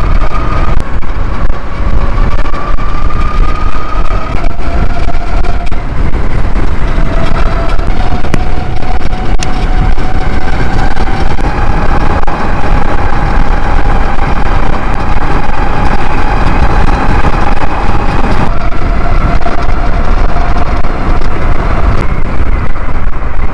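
Electric bike's stock Tuttio hub motor, driven by a Far Driver controller at about double its rated continuous power, whining at speed under heavy wind rush on the microphone. The whine climbs in pitch as the bike speeds up and drops suddenly about three-quarters of the way through.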